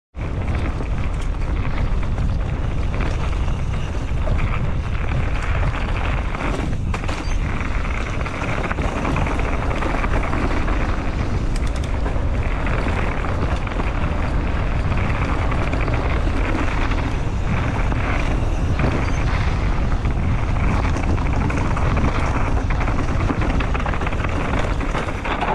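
Mountain bike descending fast on a dirt trail: a steady rush of tyre and wind noise on the camera's microphone, with occasional short knocks from the bike over rough ground.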